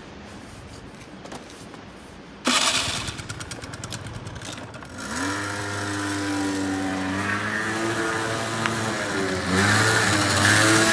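Peugeot scooter engine starting suddenly about two and a half seconds in with a loud clatter, then revving as the scooter pulls away: the pitch rises and holds, dips briefly, and climbs again, loudest near the end.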